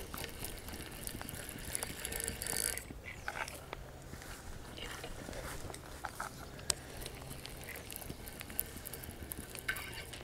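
Spinning reel being cranked on a carp rod, its gears whirring and ticking with many small sharp clicks as line is wound in.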